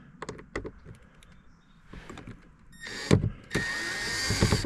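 Handheld electric screw gun whirring for about a second near the end, backing out a screw from a car door's interior trim, after a few light handling clicks.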